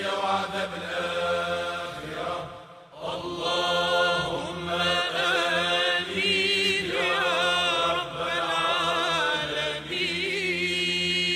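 Male Sufi devotional chanting (an ibtihal): long held notes with wavering melismatic ornaments over a steady low tone. There is a short break about three seconds in.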